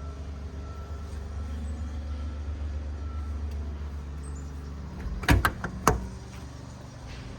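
A steady low rumble, then a quick run of four or five sharp metal clunks about five seconds in, as a compartment door on the truck's steel service body is shut and latched.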